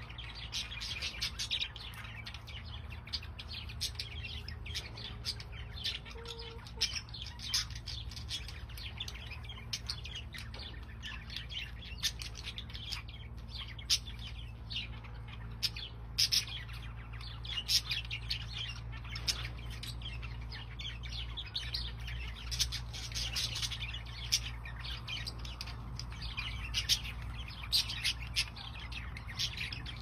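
Budgerigars chirping and chattering in many short, high chirps, over a steady low hum.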